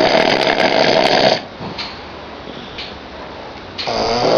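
A person snoring loudly: one long snore ends about a second and a half in, a quieter breath follows, and the next loud snore starts near the end.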